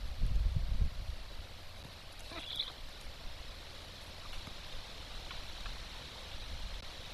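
Low rumbling thumps in the first second, then one brief high bird call about two and a half seconds in, over a steady outdoor hiss.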